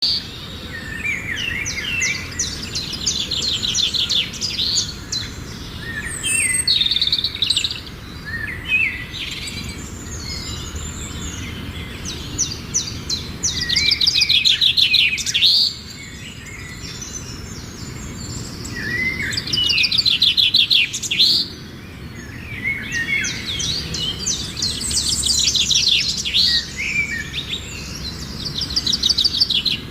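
Small birds chirping and trilling in bursts a few seconds long, with rapid high trills and scattered chirps.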